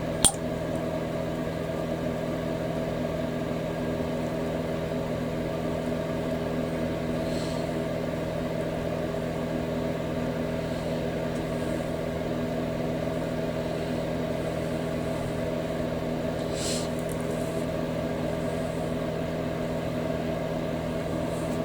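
Steady machine hum, unchanging throughout, with a few faint light clicks.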